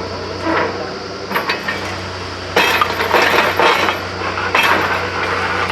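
A borewell drilling machine's motor hums steadily under bursts of clinking and clattering, the loudest two in the second half.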